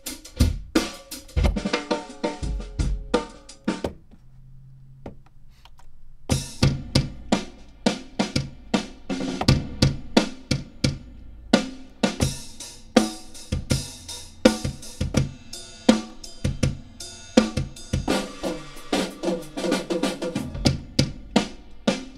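Boom bap drum break samples played back on an MPC Renaissance: looped kick, snare and cymbal patterns, one break after another. About four seconds in there is a pause of about two seconds before the next break starts.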